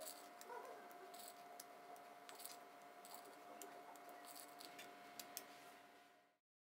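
Near silence: faint room tone with a steady hum and a scattering of soft light ticks, cutting off to dead silence near the end.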